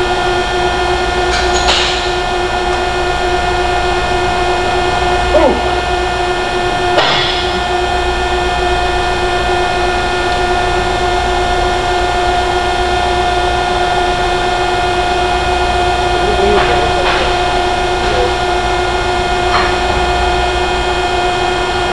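Steady machine hum holding one even pitch, with a few short metallic clanks spread through it.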